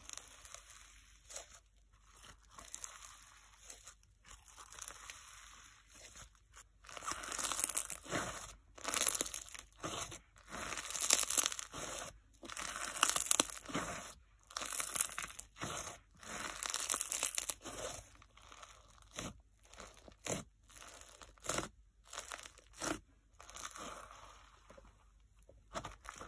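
Snow-packed fizz slime being squeezed, pressed and stretched by hand, crunching and fizzing with each squeeze. The squeezes come one after another, quieter at first and near the end and loudest through the middle.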